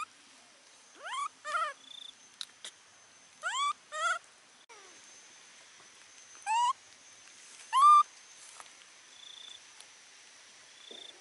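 Baby macaque giving short rising squeaky calls, about six of them, some in quick pairs, with the loudest near the end. A faint steady high tone runs beneath.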